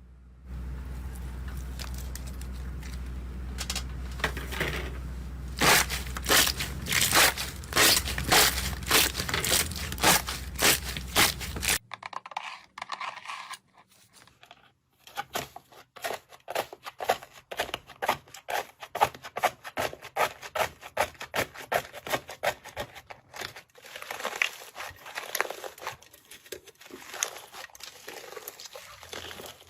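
Slime being squeezed and stretched by hand, giving repeated crackling pops over a steady low hum. After a cut about twelve seconds in, the hum is gone and another slime gives rapid, dense clicking and crackling.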